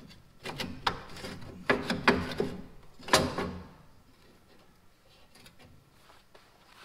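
Rusty sheet-metal fan shroud on a Farmall Super M radiator being handled by hand, giving a run of clanks, knocks and scrapes for the first three seconds or so, the loudest about two and three seconds in.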